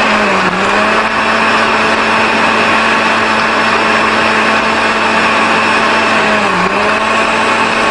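Electric countertop blender running steadily as it blends artichoke juice. Its motor pitch dips briefly twice, about half a second in and again near the end.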